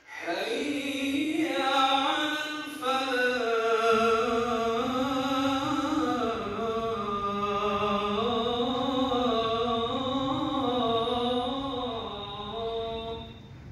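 One man's voice chanting a long, melodic Islamic recitation, the pitch rising and falling in drawn-out, ornamented phrases. It starts at once, breaks briefly about three seconds in, and eases off near the end.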